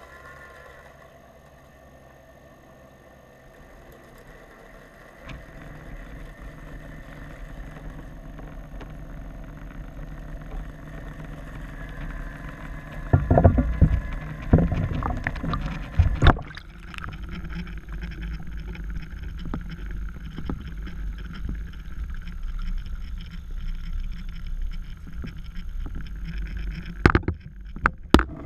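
Muffled underwater rumble picked up by a camera submerged in a swimming pool, with a faint steady hum at first. Several loud knocks and thumps come around the middle, and more just before the end, as the camera is handled and lifted out of the water.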